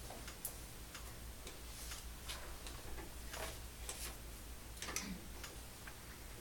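Faint, irregular clicks and ticks, a few each second, over a low room hum.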